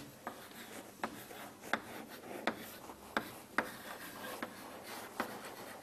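Writing by hand: irregular light taps with faint scratching, a little over one a second, over a steady faint hiss.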